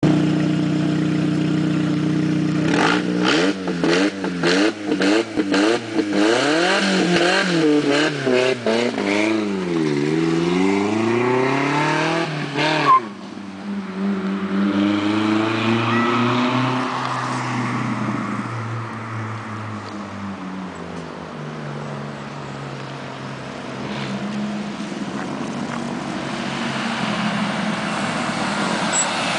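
Volkswagen Saveiro pickup's engine and exhaust, loud and rumbling. It idles at first, is revved hard in repeated quick blips that rise and fall for about ten seconds, gives one sharp pop, then settles back to a lower, steadier run.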